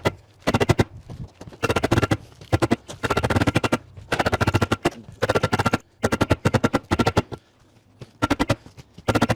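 Cordless impact driver driving screws into new metal roofing panels: about eight short bursts of fast hammering clatter, each about a second long, with the sheet metal ringing under each one.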